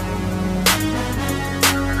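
Outro music: a beat-driven hip-hop style track with a sharp hit about once a second over steady sustained notes.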